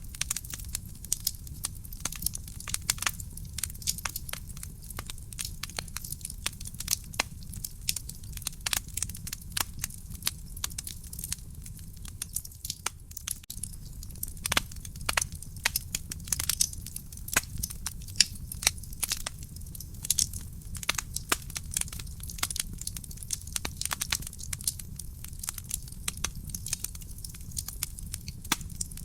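Wood fire burning in a fireplace: dense, irregular crackling and sharp pops over a steady low rumble of the flames.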